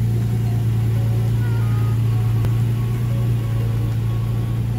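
Toyota Tacoma's engine idling steadily, a constant low hum.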